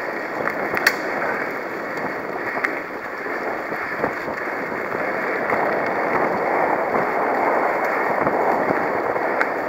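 Mountain bike rolling fast along a dirt singletrack: a steady rushing of knobbly tyres on dirt, with a few sharp clicks and knocks from the bike rattling over bumps, the sharpest about a second in.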